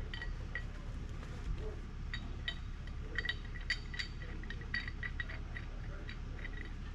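Light metallic clinks, irregular and at times several a second, each ringing briefly at the same few pitches, over a low steady rumble.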